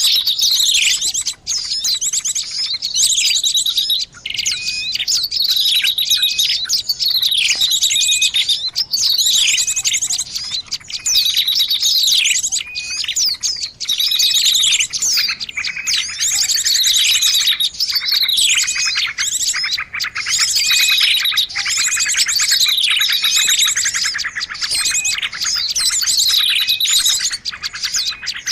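Small-bird lure-call recording: dense, continuous high-pitched chirping and twittering with quick falling notes and short trills, several calls overlapping.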